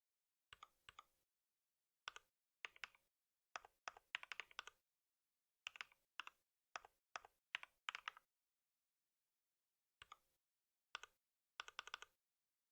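Typing on a computer keyboard: short runs of crisp keystrokes with pauses between them, and a longer pause past the middle.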